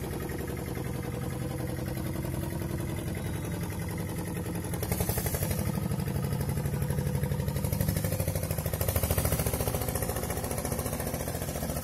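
Engine of a small wooden fishing boat running steadily as the boat motors off along the river, swelling slightly in loudness partway through.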